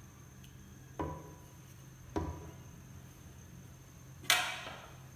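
A wooden spoon knocks twice on the rim of a metal cooking pot, each knock ringing briefly. About four seconds in comes a louder, rattly clatter. A steady low hum runs underneath.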